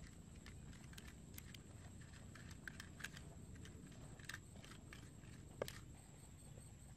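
Wooden pestle pounding and grinding wet chili sauce in a coconut-shell mortar: faint, irregular knocks and clicks, with one louder knock a little past halfway.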